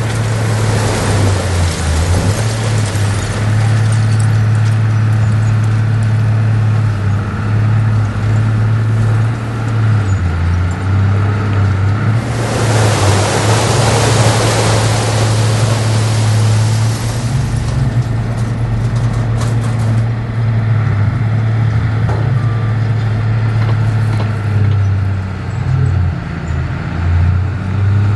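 Heavy diesel engine of earthmoving machinery running steadily with a low drone. A loud rushing hiss swells over it for about five seconds midway through.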